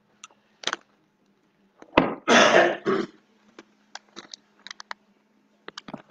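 A person coughs once, loudly, about two seconds in, followed by a few small clicks and rustles over a faint steady hum.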